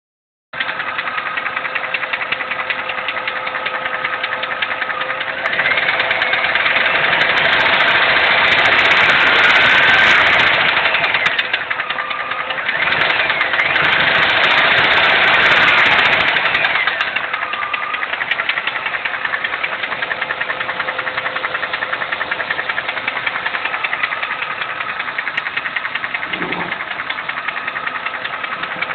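GM 5.7 L Vortec V8 idling with a rapid, even ticking, revved up twice, from about 6 to 11 seconds in and again from 13 to 17 seconds, then settling back to idle. The tick is what the owner suspects is a bad lifter.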